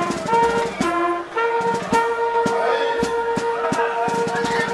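Military band playing a march as the troops parade: brass holding long notes, one of them sustained for several seconds, over steady drum beats.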